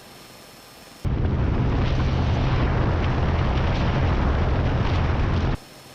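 A light single-engine airplane's piston engine and propeller running, heard as a loud low rumble. It cuts in about a second in and stops abruptly near the end.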